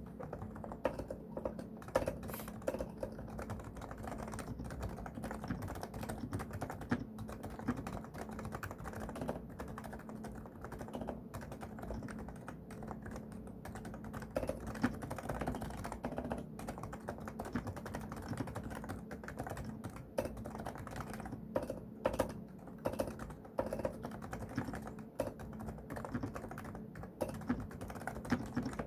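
Continuous typing on a Realforce R2SA silent keyboard with 45 g even-weight Topre switches: a dense run of soft, muted keystrokes with an occasional louder stroke.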